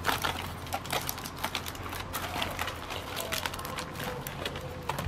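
Aluminium foil crinkling and crackling in quick, irregular clicks as a foil packet of popcorn kernels is scrunched closed around a wire popcorn rod.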